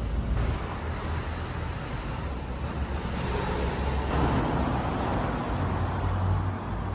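Outdoor street ambience: a steady low rumble of road traffic.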